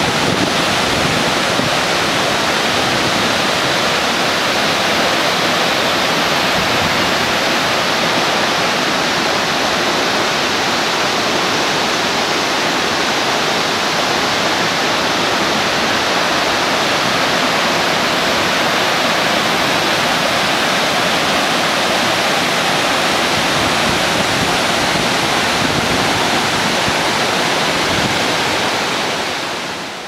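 Waterfall and rocky mountain stream: a steady rush of falling and tumbling water that fades out near the end.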